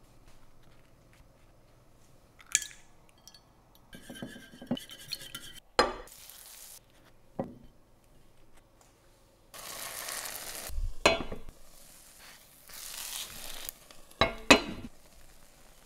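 Kitchen work sounds: metal spoons scraping and clinking against bread and dishes, then egg-soaked bread sizzling as it fries in a pan, in two stretches, with sharp clinks of the pan's glass lid being handled near the end.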